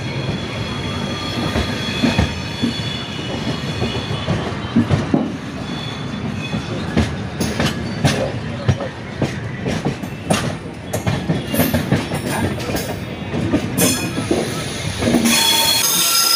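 Passenger train running, heard on board through an open window or door: a steady rumble of the wheels on the rails with a high wheel squeal. From about seven seconds in, a quick series of clicks as the wheels run over rail joints and points. Near the end it turns to a louder hissing rush with a high steady squeal.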